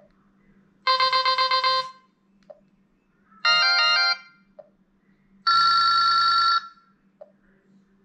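T-Mobile Sidekick II (Hiptop 2) phone playing three short alert tones through its built-in speaker, one after another: a rapidly pulsing chime about a second long, then a quick run of stepping notes, then a steady buzzy tone about a second long. Faint clicks come between them.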